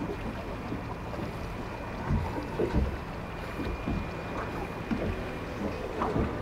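Steady wind and water noise of a boat at sea, with a few soft, low knocks.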